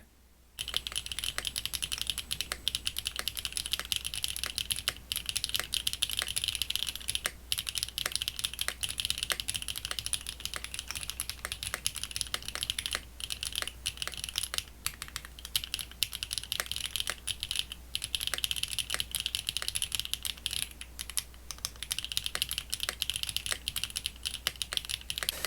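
Continuous fast typing on a QK60 60% mechanical keyboard with an aluminium plate and Swagkeys Foundation keycaps (mixed ABS and PBT). It is a dense run of keystroke clacks that starts about half a second in.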